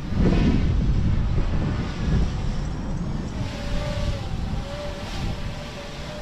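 Strong wind buffeting the microphone: a loud, uneven low rumble, heaviest just after the start. A faint wavering tone comes in about halfway through.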